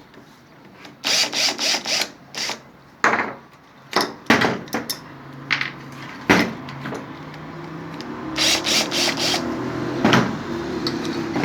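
Hand-tool work on the washing machine's spin-dryer motor mounts: a series of sharp metal clicks, knocks and rattles as the mounting bolts are worked loose, with a quick run of ratchet-like clicks near the end. A steady low hum builds in the background in the second half.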